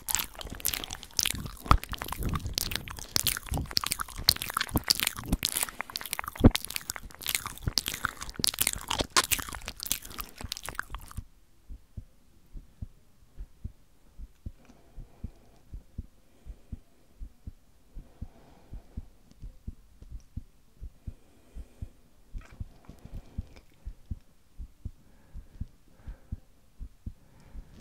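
Close-miked ASMR mouth sounds: a dense, fast run of wet clicks and smacks that stops abruptly about eleven seconds in. After that, regular soft low thumps come a little faster than once a second, with faint mouth clicks over them.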